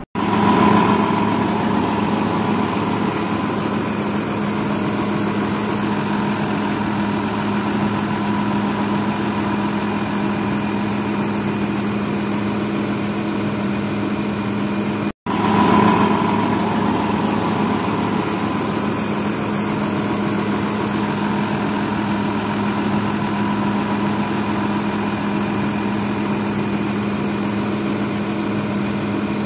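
John Deere 6155M tractor's diesel engine idling steadily. The sound cuts out for an instant about halfway through and then resumes unchanged.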